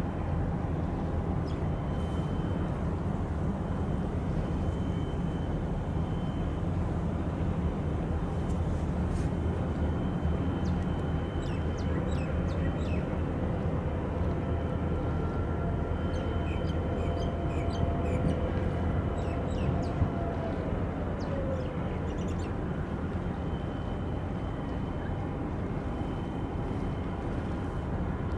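Steady low rumble of harbour vessels' engines, the departing container ship and its tug, mixed with wind and water noise. A few short high chirps come through around the middle.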